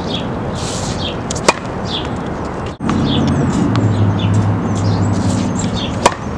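Two tennis serves: a racket strikes the ball with a sharp crack about a second and a half in and again near the end. Birds chirp repeatedly over steady outdoor background noise, and a low steady hum comes in about halfway.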